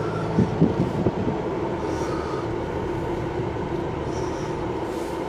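Steady engine hum with a constant drone and a few faint knocks in the first second.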